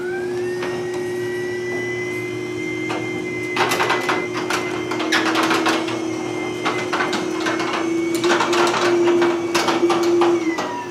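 Chamberlain Wi-Fi garage door opener running as it lowers a sectional garage door: a steady motor whine with clattering and rattling from the door and its rails. The whine rises in pitch as it starts and drops away as the opener stops near the end.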